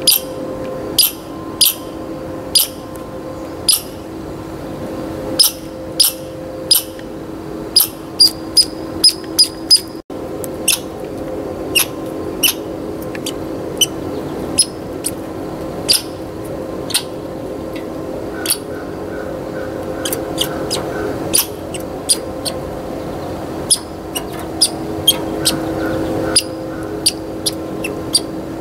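American red squirrel making short, sharp high-pitched squeaks close by, one every second or so at irregular spacing and at times in quick runs. A steady low hum runs underneath.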